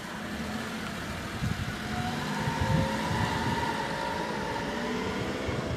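Motor vehicle engine running with a low rumble, with faint steady engine tones coming in and the sound swelling about two to three seconds in.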